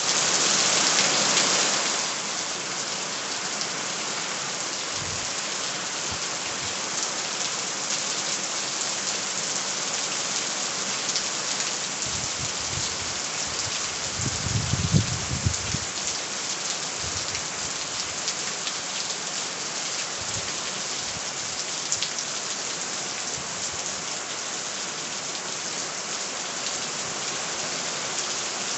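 Steady rain falling on a surface, a dense hiss of drops, a little louder for the first two seconds. A brief low rumble comes about halfway through.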